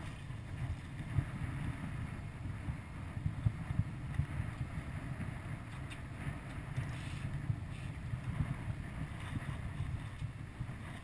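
Steady low rumble of wind buffeting the microphone aboard a boat at sea.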